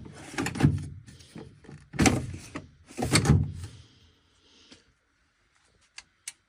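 Three loud knocks or thuds about a second apart, like a door or drawer being moved, then quieter, with two light clicks near the end.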